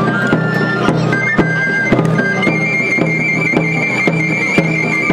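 Flabiol and tambor: a small Catalan three-hole flute plays a high melody while the same player beats the drum about twice a second. From about halfway in, the flute holds one long high note.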